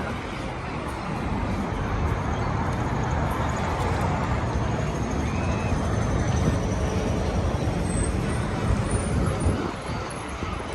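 Steady street traffic noise, with motor vehicles running past.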